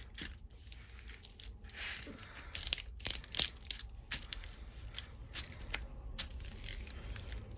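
Clear plastic protective film on a diamond painting canvas crinkling and crackling in irregular short bursts as it is peeled back and smoothed flat by hand.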